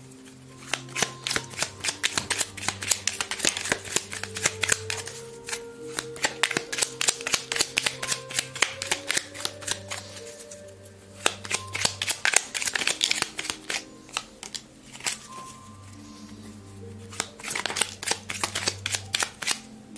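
Tarot cards being handled and laid down on a table, a stream of quick card clicks and slaps in runs with short pauses, over soft background music of long held notes.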